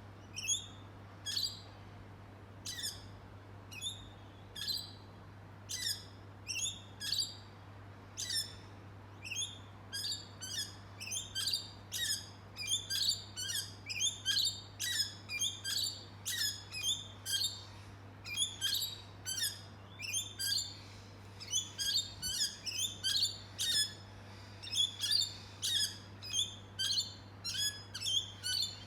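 Birds chirping in short, sharp, high calls that drop in pitch, about one a second at first and busier from about ten seconds in, with calls overlapping, over a steady low hum.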